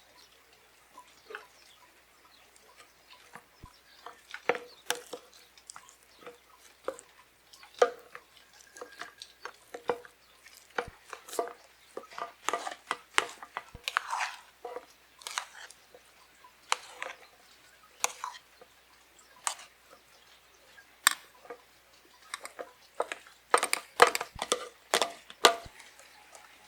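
Irregular light knocks and clinks of objects being handled, sparse at first and coming thicker and louder in the second half, with a cluster of sharper knocks near the end.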